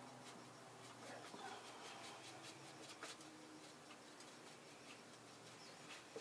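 Faint scratching and light tapping of a paintbrush mixing paint on an aluminium foil pie-tin palette, with one slightly sharper click about three seconds in.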